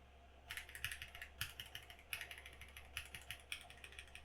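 Typing on an Akko PC98B mechanical keyboard, stock out of the box: quick bursts of key clicks with short pauses between them.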